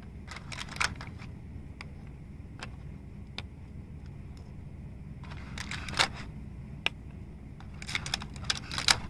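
Small toy coffee cups being picked out of a clear plastic packaging tray and set down on a table: scattered light clicks and taps in a few small clusters, the sharpest about six seconds in and just before the end, over a low steady hum.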